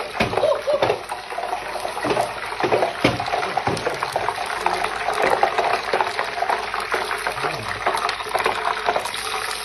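Puri deep-frying in a pot of hot oil: a steady crackling sizzle of oil bubbling around the puffing dough.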